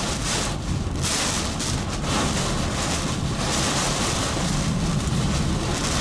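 Violent thunderstorm wind, gusting well over 80 mph, with torrential rain. The wind swells and fades in gusts about once a second over a steady low rumble.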